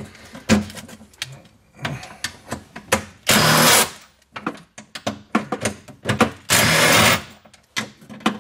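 Makita 18V cordless impact driver running in two short bursts, the second about a second long, turning a battery tray bolt through a socket on an extension. Short knocks and clinks of the tool and socket against the sheet metal come between the bursts.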